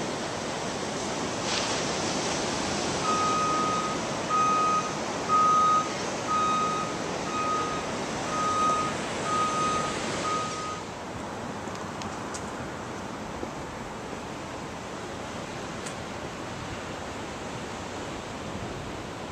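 Reversing alarm of a heavy vehicle backing up: about eight beeps of one steady tone, roughly one a second, over a rushing noise that drops away with the last beep about ten seconds in.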